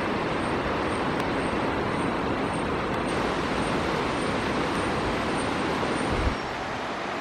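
Steady rush of a swollen, fast-flowing river, with a faint high tick repeating about twice a second over it. The rush drops a little about six seconds in.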